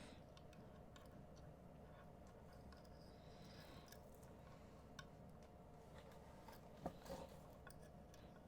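Near silence: room tone with a faint steady hum and a few soft clicks from handling the beading cord and beads.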